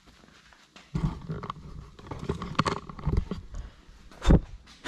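Handling noise: rustling, scraping and knocks as the camera is picked up and moved, with one sharp thump about four seconds in. A quiet first second comes before it.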